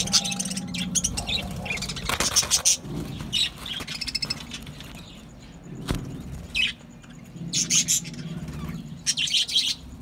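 A flock of budgerigars chirping and chattering, in quick clusters of high calls. A single sharp click comes about six seconds in.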